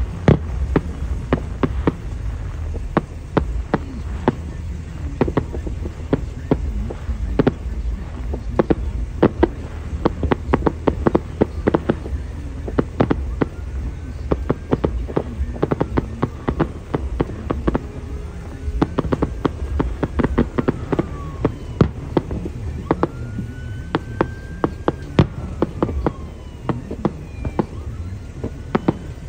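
Aerial fireworks shells bursting in a rapid, continuous series of sharp bangs and crackles over low booms.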